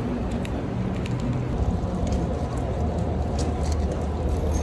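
City street traffic noise: passing and idling vehicles making a steady low rumble, with a faint steady tone coming in about a second and a half in.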